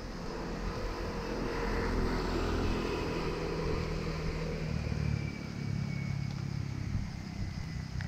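A motor vehicle's engine running on a road, growing louder over the first couple of seconds, with a faint whine that slowly drops in pitch.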